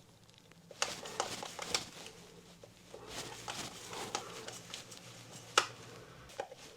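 Scattered small clicks, taps and scrapes of hand work on an electrical wall box and switch, as stiff cables are pushed back into a shallow box and the new switch is seated. The sharpest click comes about five and a half seconds in.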